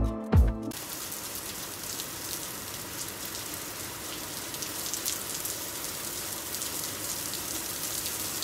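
Music cuts off well under a second in, giving way to a steady hiss with faint crackles, like rain or outdoor noise on a phone microphone.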